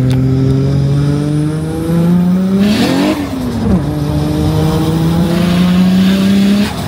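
Toyota Chaser JZX100's 1JZ inline-six accelerating, heard from inside the cabin: the engine pitch climbs, drops sharply with a gear change about three seconds in, then climbs steadily again and falls away just before the end.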